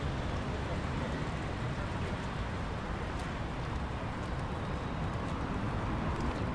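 Steady rumble of road traffic on a wide city avenue, an even wash of noise with no single vehicle standing out.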